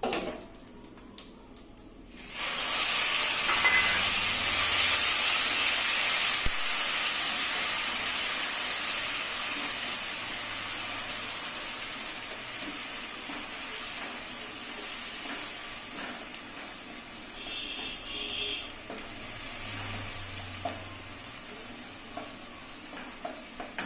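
Ground masala paste going into hot mustard oil in a kadai: a loud sizzle that starts suddenly about two seconds in and slowly dies down as the paste is stirred with a wooden spatula. A few light clicks come before it.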